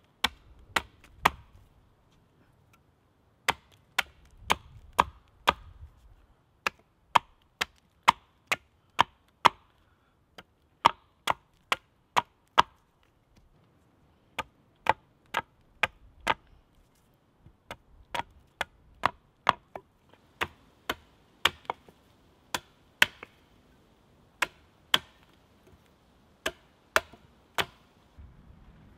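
Hatchet chopping a point onto the end of a wooden pole held upright on a stump: a long run of sharp strikes, about one to two a second, broken by a few short pauses.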